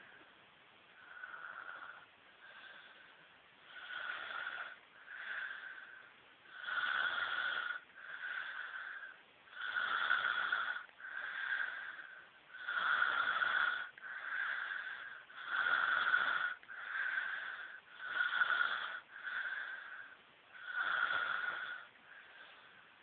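A sleeper snoring in a steady rhythm, a louder snore and a softer one roughly every three seconds, each with a whistling note. The snores start fainter and grow louder after the first few seconds. The sleeper is ill.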